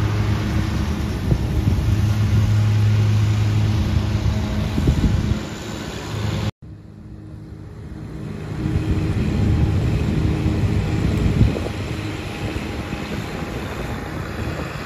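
Garden tractor towing a Cyclone Rake leaf vacuum, its engine running steadily as it passes close. After a cut about six and a half seconds in, the engine is fainter, swells for a few seconds and then eases off.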